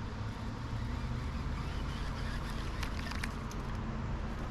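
Steady low outdoor background rumble, with a few faint clicks about three seconds in.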